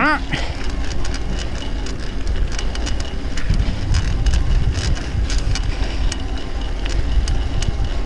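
Electric mountain bike climbing a dirt fire road under motor power: wind rumbling on the camera microphone, tyres crackling over the gravel, and a faint steady high whine from the Bafang BBSHD mid-drive motor.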